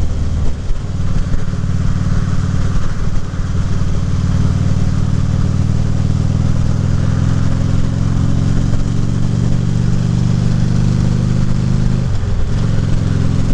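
Harley-Davidson Ultra Limited's V-twin engine running steadily at road speed, with wind noise. The engine note dips briefly near the end.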